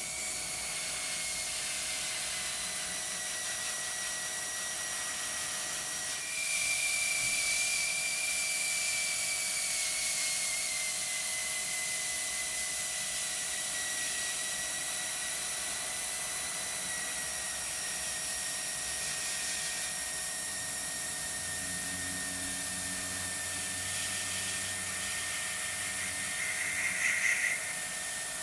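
Airbrush spraying, with a steady hiss of air over the high whine of its small compressor. About six seconds in the hiss grows louder and the whine steps up in pitch, then slowly settles.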